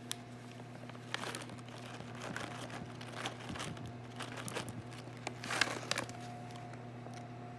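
Crinkling of a plastic cat-treat pouch as it is handled and shaken, in irregular bursts, loudest about five and a half seconds in.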